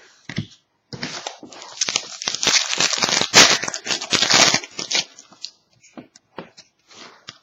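Foil wrapper of a trading-card pack being torn open and crinkled for about four seconds, followed by a few light ticks.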